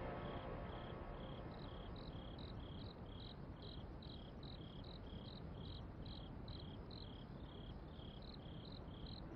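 Crickets chirping faintly: a steady run of short, high chirps at two alternating pitches, over a low background hiss.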